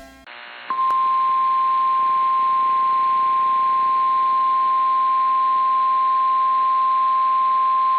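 NOAA Weather Radio 1050 Hz warning alarm tone: one long, steady, high-pitched beep starting just under a second in, over faint radio hiss. It is the alert that comes before a warning, here a tornado warning, is read out.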